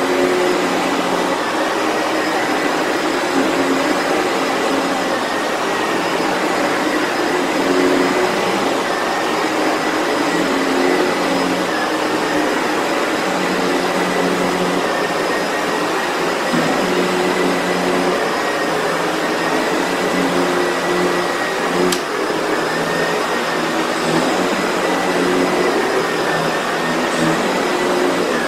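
Sebo Felix vacuum cleaner running steadily, with a thin high whine over its airflow noise and a lower hum that keeps swelling and fading as it is worked back and forth. A single sharp click sounds about three-quarters of the way through.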